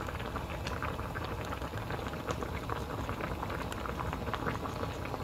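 Spicy dumpling hot-pot broth bubbling at a rolling boil in a small aluminium saucepan, a steady stream of small pops and bubbling.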